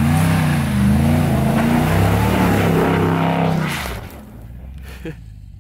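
Pickup truck engine revving hard, its pitch rising and falling for about four seconds before fading away, with a brief loud swell near the end.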